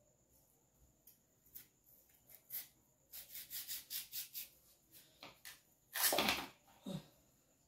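Kitchen knife cutting peeled raw yam over a bowl: a quick run of short cutting strokes about three seconds in, then a louder, longer stroke about six seconds in and a smaller one just after.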